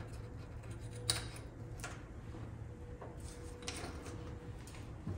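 Hand-lever metal shrinker working the edge of a sheet-metal piece to tighten its curve: a few light clicks and clacks from the jaws and lever, the sharpest about a second in, over a low steady hum.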